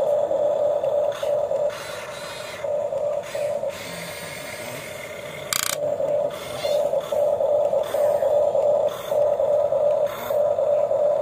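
Huina RC excavator's electric motors running in short stop-start bursts as the controls are worked, with one brief scrape about five and a half seconds in.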